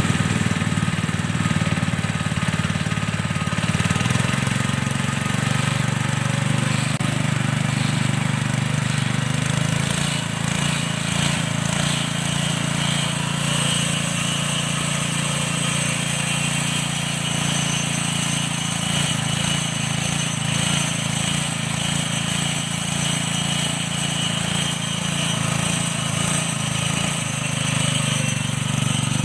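Simple homemade feed-pellet machine running steadily, a continuous mechanical drone with a constant low hum.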